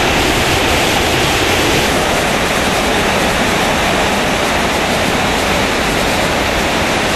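A river in flood: a steady, loud rush of fast-moving floodwater churning past.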